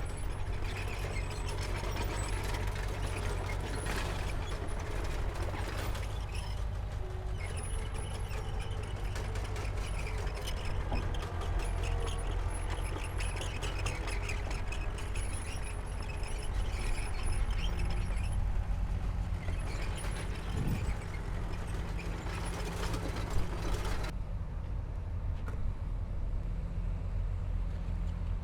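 Heavy diesel earthmoving machinery running with a deep, steady engine rumble. Over it is a busy mechanical clatter and scraping of metal and rock, which cuts off about four seconds before the end while the engine keeps running.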